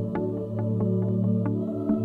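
Background music: soft new-age style music with steady held chords and light struck notes several times a second.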